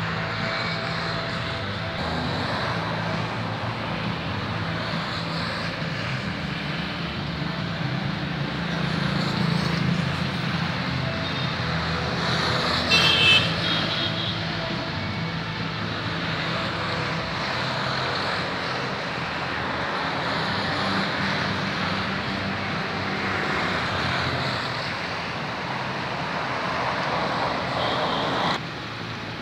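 Steady city street traffic, with vehicle engines running and passing. A short shrill sound rises above it about halfway through.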